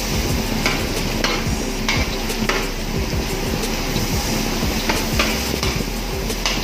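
Pork pieces and garlic sizzling in a large metal wok while a long metal spatula stirs them, scraping and knocking against the pan about once or twice a second.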